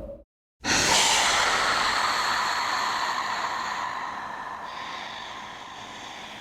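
Horror sound effect: a sudden breathy hiss with a faint ringing in it, starting after a brief moment of silence and fading away slowly over several seconds.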